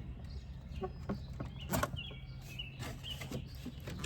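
Sharp plastic clacks and knocks as a car's front bumper cover is worked loose, the loudest about two seconds in. Birds chirp in the background over a steady low hum.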